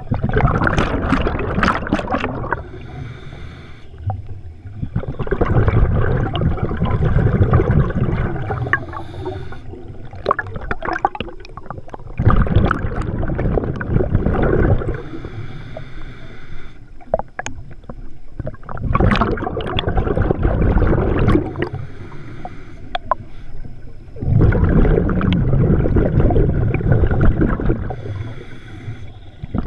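Scuba diver breathing through a regulator underwater. Loud bursts of exhaled bubbles come about every five to six seconds, five times in all, with quieter hissing inhalations between them.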